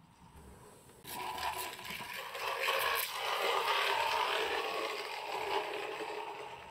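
Small hard wheels of a tiny skateboard strapped under a Reeves' turtle rolling and scraping across wooden flooring as the turtle walks itself along. It starts abruptly about a second in and eases off near the end.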